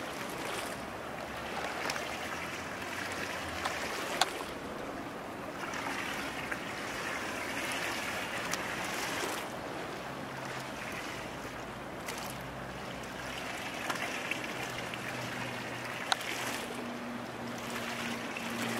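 Small waves washing and lapping, swelling and easing every few seconds, with a couple of sharp clicks and a faint low hum coming in near the end.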